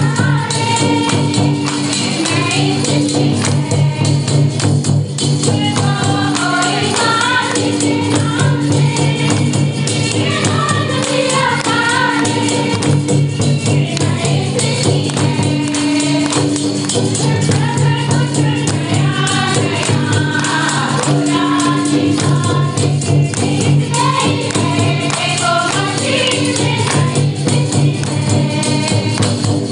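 A group of women singing a Christian devotional bhajan (masih bhajan) in chorus, accompanied by two barrel-shaped hand drums beating a fast, steady rhythm.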